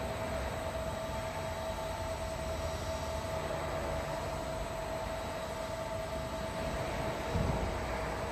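Union Series #5 roller coater and its powered belt conveyor running: a steady mechanical hum with a constant whine on top. A brief low thump stands out near the end.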